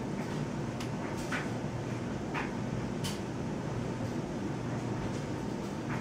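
Steady low background hum, with a few faint short ticks scattered through the first half.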